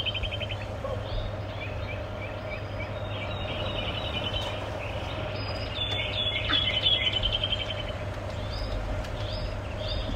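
Songbirds chirping and singing in the trees, with short repeated calls and rapid trills, one long trill about six seconds in. A steady low hum runs underneath.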